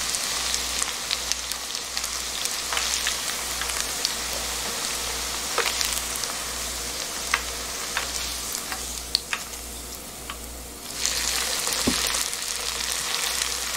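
Battered quail-egg skewers deep-frying in a small pan of oil: a steady sizzle with scattered crackles. The sizzle grows louder about eleven seconds in, as a freshly battered skewer goes into the oil.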